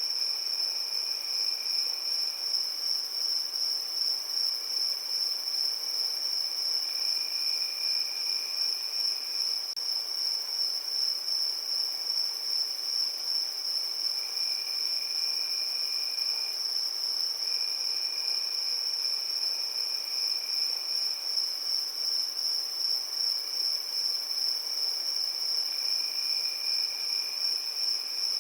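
Crickets chirping in a steady, high-pitched trill. A second, lower trill comes in and drops out in stretches of about two seconds.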